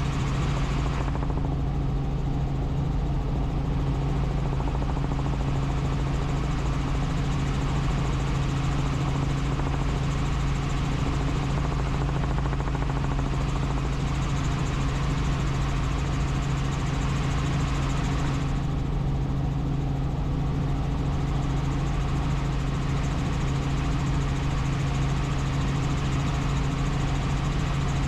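Helicopter in flight: a steady engine and rotor drone with a strong low hum. The high hiss thins out briefly about a second in and again about eighteen seconds in.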